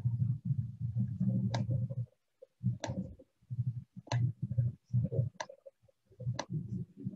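Sharp clicks, about one a second, over a low, choppy rumble that keeps cutting in and out.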